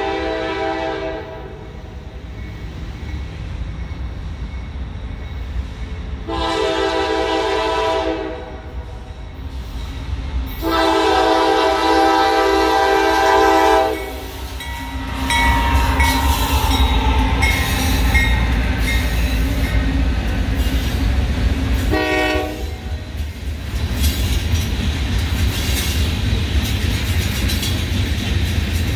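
Norfolk Southern manifest freight train sounding its horn in long blasts, three in all, the last ending about halfway through, then one short toot about two-thirds of the way in. From about halfway the locomotives and freight cars pass close by with a loud, steady rumble and the clatter of wheels over the rail joints.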